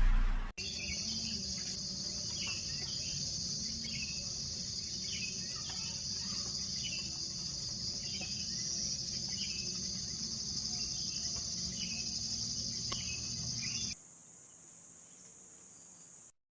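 A high, steady insect trill, with a bird giving short repeated chirps about every half second to second. Both stop abruptly near the end, leaving faint hiss.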